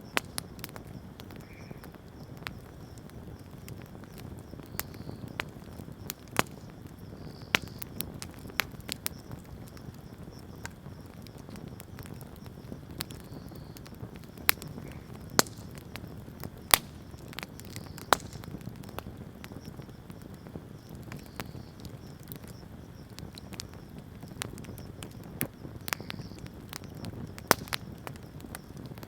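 Wood bonfire crackling: irregular sharp pops and snaps, a few of them loud, over a low steady rumble of the burning fire.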